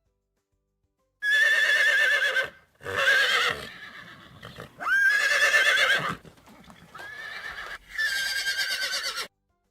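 Horse whinnying: a series of four or five loud neighs with a trembling, wavering pitch, starting about a second in and separated by short pauses.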